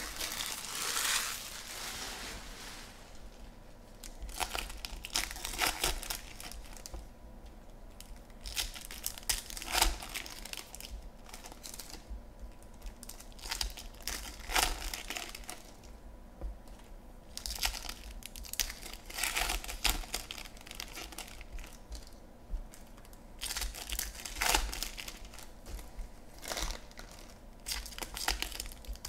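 Foil wrappers of Topps Chrome baseball card packs crinkling and tearing as packs are ripped open and cards handled, in irregular bursts every second or two.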